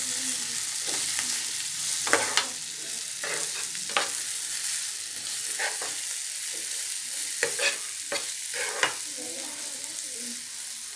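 A spatula stirring and scraping a dal, green chilli and onion-tomato fry in oil in a non-stick pan, over a steady sizzle. About a dozen short scrapes and knocks of the spatula against the pan come at uneven intervals.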